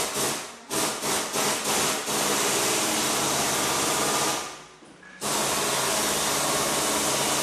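Workshop power tool pulsed in several short bursts, then run steadily, with a brief pause about five seconds in before it runs again.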